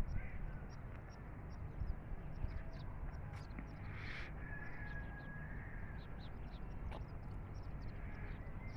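Birds calling outdoors: many short, high chirps, with a louder harsh call about four seconds in, over a low rumble.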